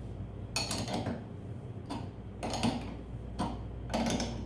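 Socket wrench ratcheting, a run of rapid clicks about once a second with each back-stroke, as a 3/4 inch nut is tightened on a quick-release flag pole mount.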